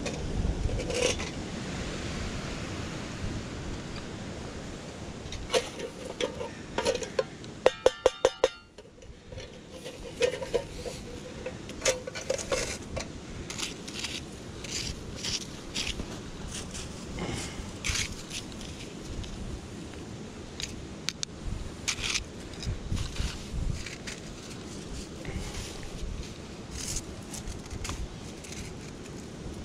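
Small hard objects clinking and clattering over a steady rushing background, with a quick run of about six sharp clicks about eight seconds in.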